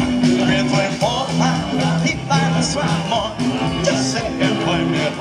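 Live rock-and-roll band playing: bass notes changing about every half second under steady drums and cymbals, with electric guitar and some singing.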